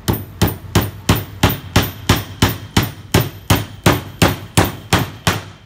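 Vonder claw hammer driving a nail into a wooden board: a steady run of sharp, evenly spaced strikes, about three a second.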